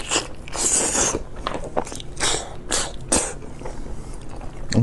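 Close-miked eating sounds: a person biting and chewing meat in irregular bursts of moist crunching and scraping noise.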